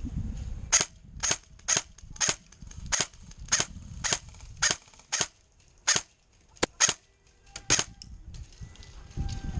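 Airsoft gun firing single shots in steady succession, about a dozen sharp pops a little over half a second apart, stopping about two seconds before the end.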